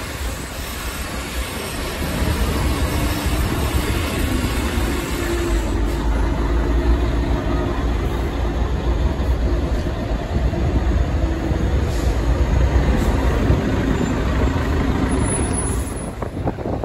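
City bus engine running with a heavy low rumble as the bus pulls away and drives slowly past at close range, growing louder about two seconds in.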